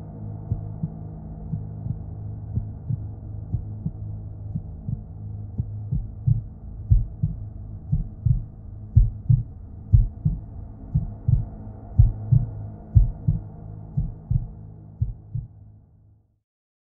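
Horror-film heartbeat sound effect: regular low thumps over a steady low drone. The beats grow louder toward the middle, then everything fades out about a second before the end.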